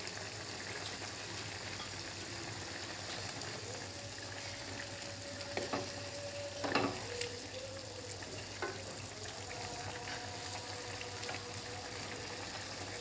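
Chicken pieces simmering in oil and water in a karahi, a steady bubbling sizzle. A wooden spoon stirs them, knocking against the pan a few times around the middle.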